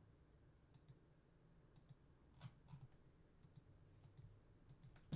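Near silence with faint, irregular clicks, like a computer mouse and keyboard being used.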